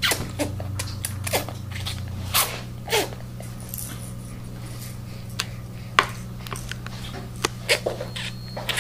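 Wet mouth smacks and clicks of a baby gumming and chewing a plastic teething toy, irregular and short, over a steady low hum.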